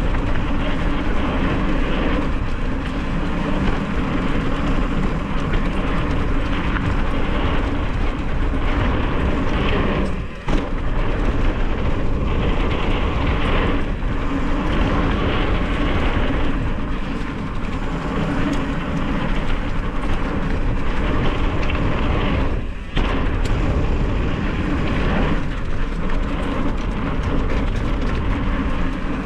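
Steady rush of wind on the microphone and rumble of a mountain bike rolling fast over a dirt trail, with two brief lulls.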